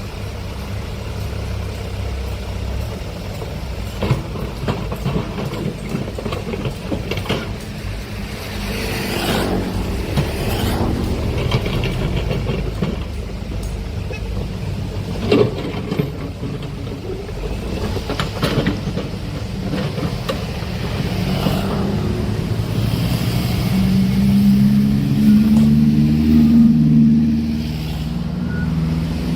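Heavy diesel earthmoving machinery running at a work site, with a steady low engine rumble and a few sharp knocks. Near the end the engine note rises and strengthens for a few seconds under load, then drops back.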